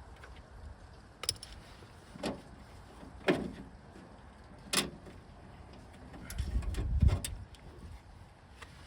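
Metal clicks and clanks from tools and the door-handle linkage being worked inside a car door: about five separate knocks, some with a short ring, and a low rumble leading up to the loudest knock near the end.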